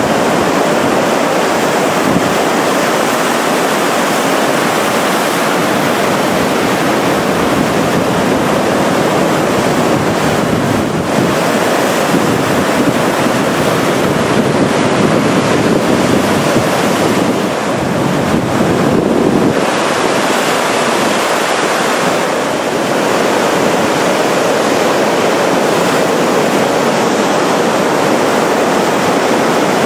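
Ocean surf: head-high waves breaking and white water washing in to the shore, a steady rushing noise.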